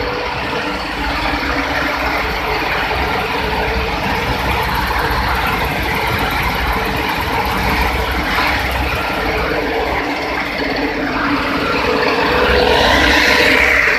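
Sesame seed cleaning machine running: a steady mechanical noise with a constant hum, growing louder near the end.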